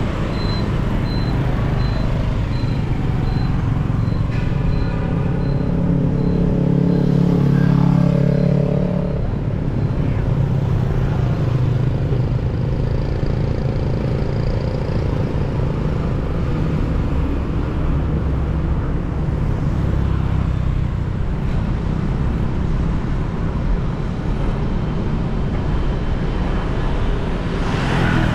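City street traffic heard from a moving motorcycle: a steady hum of engines and road noise that swells a little around seven or eight seconds in. A faint, high beep repeats a little under twice a second through about the first seven seconds.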